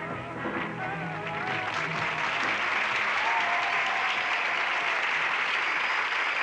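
The last sung notes of the song fade out in the first second or two. A studio audience then breaks into steady applause that carries on to the end.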